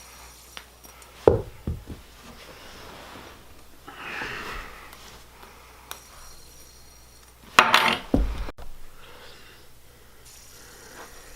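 Small hard objects knocking and clattering: one sharp knock with a short rattle about a second in, a soft rustle around four seconds in, and a louder clatter of several knocks past the middle.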